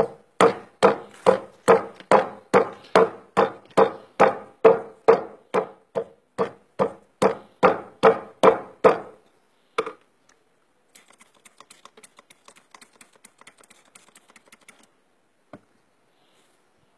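A rubber mallet pounding a lump of animal fat mixed with oil on a stone slab, about two and a half steady blows a second for some nine seconds, working it into sivo, tallow grease for oars. One more blow follows a second later, then a few seconds of faint light clicking.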